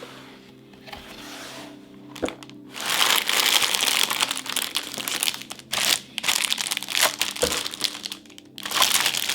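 A keyboard's packaging wrap crinkling loudly as it is handled and pulled off, in long rustling stretches with short pauses between them, after a quiet start broken by a single click.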